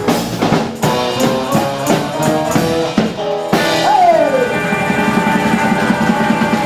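Live band playing an upbeat song on electric guitar and drum kit, with a note sliding down about three and a half seconds in, then a long held note over a fast, even rhythm.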